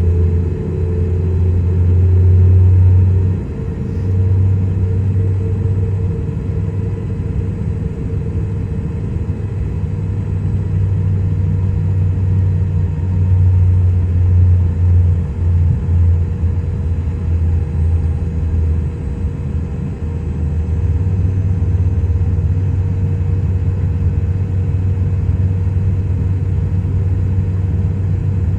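Boeing 777 jet engines and airframe: a steady, loud low rumble with faint steady tones above it, wavering a little in level without a clear build or fade.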